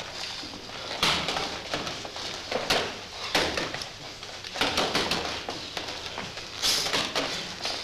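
Two gloved boxers sparring on a wooden ring floor: irregular thuds of punches and scuffs of shuffling feet, several of them sharp.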